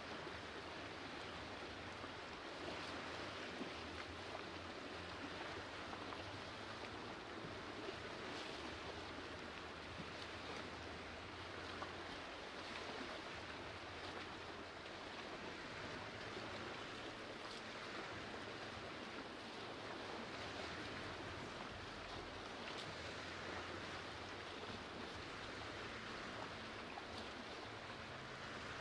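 Small lake waves lapping against shoreline boulders: a soft, steady wash of water that swells and eases every few seconds.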